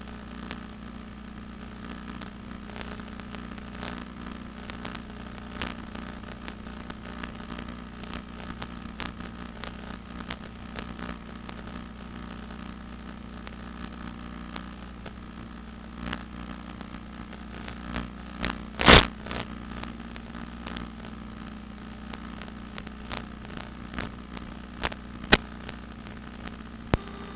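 Hexcopter's electric motors giving a steady hum of several constant tones, heard over the FPV video link. Faint static crackles and clicks break in throughout, with one loud crackle about 19 seconds in.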